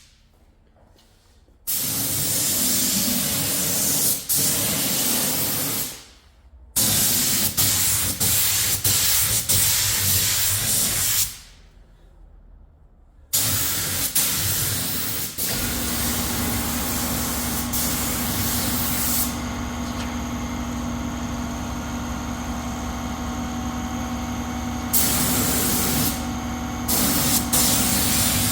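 Compressed air hissing in long bursts of several seconds, stopping and starting. About halfway through, a motor starts running with a steady low hum under the hiss.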